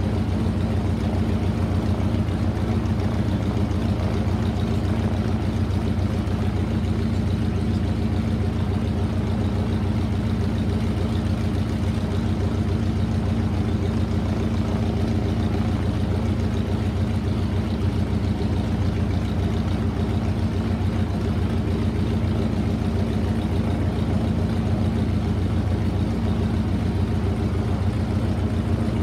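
Spartan Executive's Pratt & Whitney R-985 Wasp Junior nine-cylinder radial engine idling steadily with an even, rapid pulsing beat.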